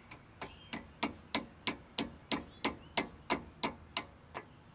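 A hammer tapping a steel cotter pin into the axle nut of a wheel hub. The light metallic taps come about three a second, evenly spaced, roughly a dozen in all.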